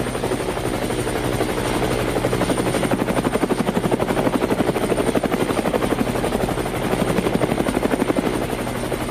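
Helicopter rotor chopping steadily at about ten beats a second over a steady low hum, swelling a little in the middle.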